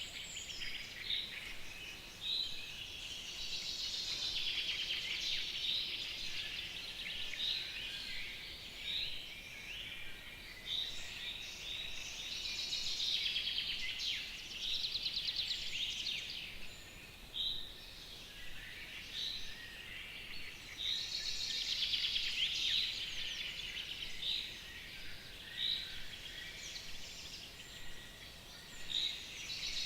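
Several songbirds singing at once in a spring dawn-chorus style: overlapping trills and warbles with a short chirp repeated about once a second, over faint background hiss.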